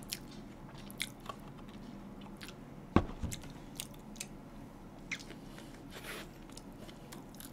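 Close-up mouth sounds of biting into and chewing a toasted ham sandwich, with scattered small crunchy clicks and one louder knock about three seconds in.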